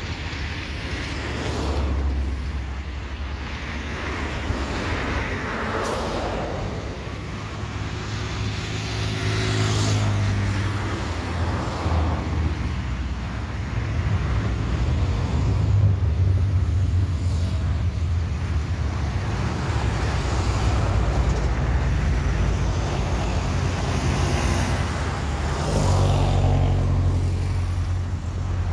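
Road traffic: cars and trucks passing close by one after another, each swelling and fading, over a steady low rumble.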